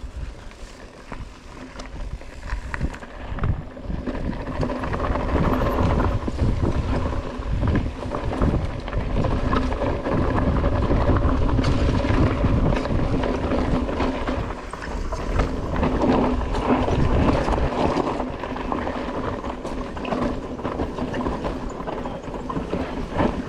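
Mountain bike riding down a steep, rocky trail: tyres rolling over rock and roots with many knocks and rattles from the bike, under steady wind rumble on the microphone. It gets louder a few seconds in and stays busy.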